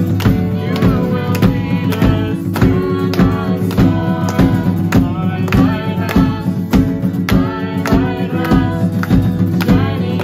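Live worship band: several voices singing together over strummed acoustic guitars, with a drum kit keeping a steady beat.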